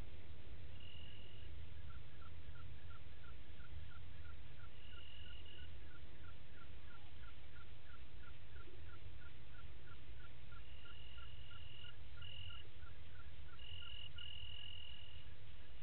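Night chorus at a waterhole: a regular series of short chirps, about three a second, with high cricket trills starting and stopping several times, over a steady low rumble of background noise.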